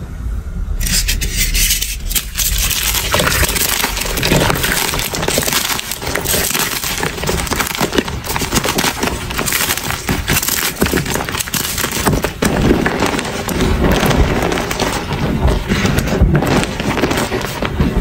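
Blocks of gym chalk crunching and crumbling as they are crushed by hand, a dense run of crackles. Later the loose chalk powder is pressed and rubbed under the palms.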